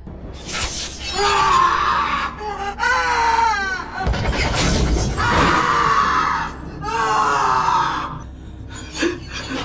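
A boy screaming in about four long, strained bursts, over low film music.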